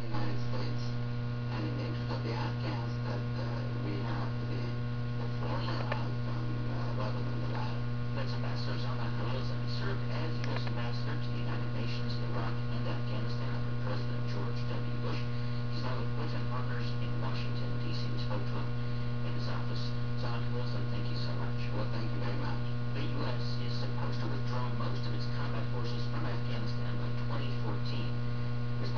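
Steady electrical hum, with faint short ticks scattered irregularly over it.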